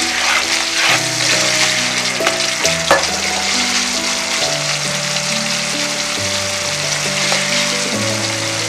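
Thick ginger-and-tamarind curry bubbling in a non-stick kadai over a gas flame, a steady sizzle as it boils down. Background music of slow held notes plays along.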